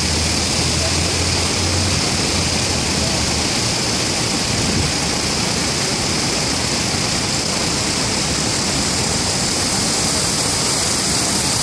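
Steady rushing city-street ambience, a loud even hiss, with a low engine hum under it for the first three seconds or so.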